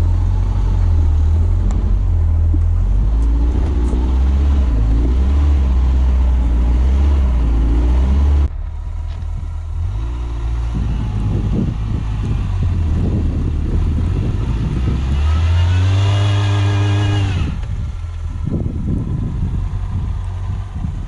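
Suzuki SJ410 off-road 4x4's engine running under load as it is driven, cutting abruptly to a quieter sound about eight seconds in. Around sixteen seconds in the engine revs up, its pitch rising and then holding briefly before dropping off.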